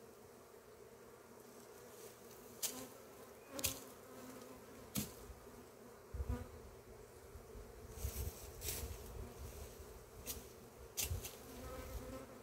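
Italian honeybees buzzing steadily in a dense mass around and over a hive box. Several short sharp clicks and bursts of low rumble break in over the buzzing.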